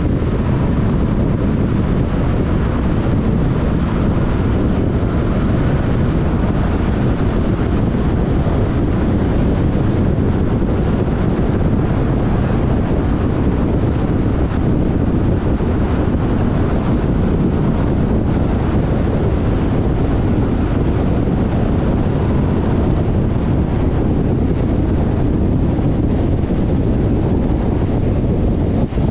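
Steady road noise of a car driving at speed: tyre rumble and wind, low and even, without changes.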